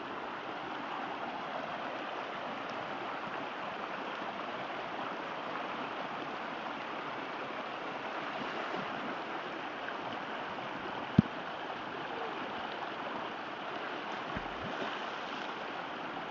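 Shallow creek water flowing steadily, with a single sharp click about eleven seconds in.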